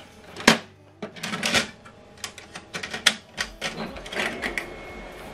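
Plastic clatter of an HP Color LaserJet Pro MFP 4302dw being handled: a sharp snap about half a second in as the front door shuts, then a run of clicks and knocks as the fold-down paper tray is opened.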